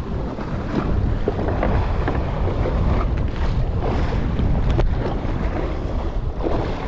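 Strong wind buffeting the microphone over a rough, choppy sea, with water washing around the boat.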